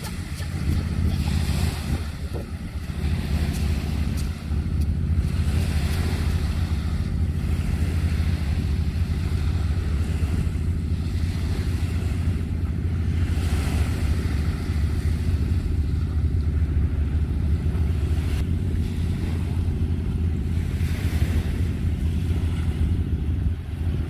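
Wind buffeting the microphone in a steady low rumble, over small waves washing onto the shore that swell and fade every few seconds.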